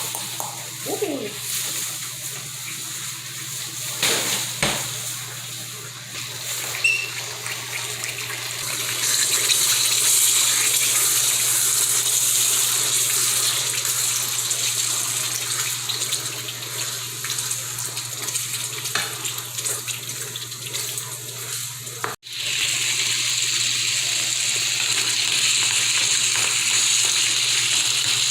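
Meatballs frying in a hot pan: a steady sizzling hiss that grows louder about nine seconds in, with a couple of knocks of pan or utensils around four seconds in.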